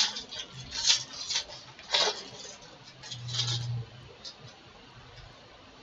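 Foil baseball-card pack wrapper being torn open and crinkled by hand: a handful of short, sharp crackles over the first four seconds, then quiet as the cards come out.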